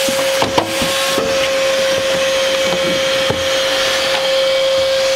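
Shop vacuum running with a steady whine and hiss as its hose sucks up debris from the bare sheet-metal trunk floor, with a few short knocks as the nozzle hits the metal.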